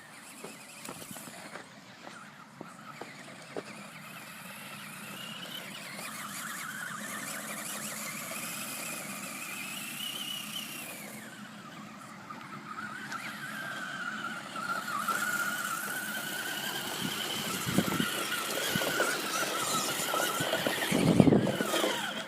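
Electric motor of a radio-controlled car whining as it drives, its pitch rising and falling with speed. There are two short low rumbles near the end.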